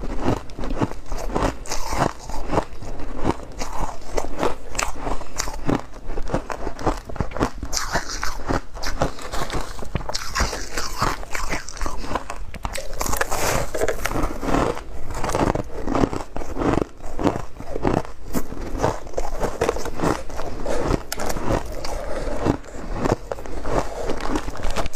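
Close-miked crunching and chewing of refrozen freezer frost ice: dense, irregular crackling crunches that go on without pause as the packed frost breaks between the teeth.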